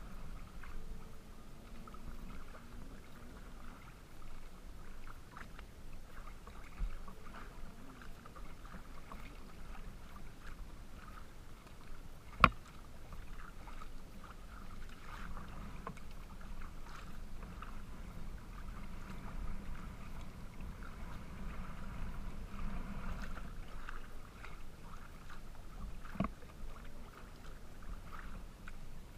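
Water sloshing and splashing along the hull of a Pungo 140 recreational kayak as it is paddled through light chop. A single sharp knock sounds about twelve seconds in, and a fainter one near the end.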